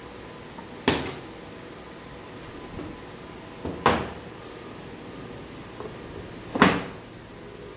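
Stained wooden panels of a slot-together bed being handled and set down on a wooden workbench: three sharp wooden knocks about three seconds apart, with a few softer knocks between.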